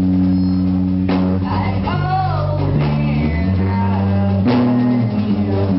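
Live rock band playing loud: electric guitars and bass holding chords over a drum kit, with singing.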